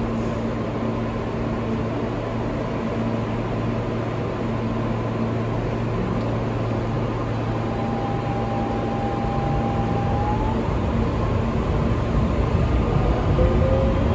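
R160B subway car with Siemens propulsion: a steady hum and rumble, with a thin whine that comes in about halfway and climbs in pitch, and the noise grows louder near the end as the train gets under way.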